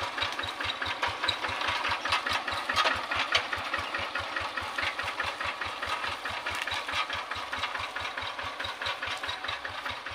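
Two-wheel hand tractor engine running with a steady, even low beat, with metal clattering from the machine and its iron cage wheels as it is driven along.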